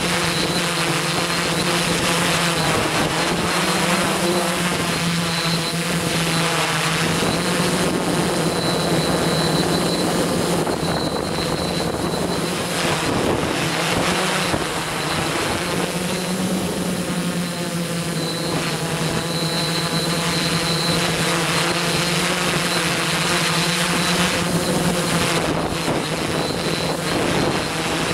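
Quadcopter's electric motors and propellers running steadily as it hovers, picked up by the camera it carries: a steady hum that shifts slightly in pitch now and then.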